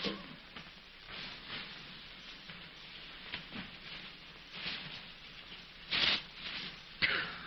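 A sheet of paper rustling and crinkling as it is handled, with louder crinkles about six seconds in and again near the end, over the steady hiss of an early optical film soundtrack.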